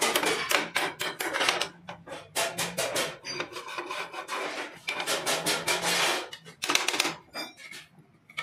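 A hand file rasping on metal in quick back-and-forth strokes. It goes in several runs with brief pauses and stops shortly before the end.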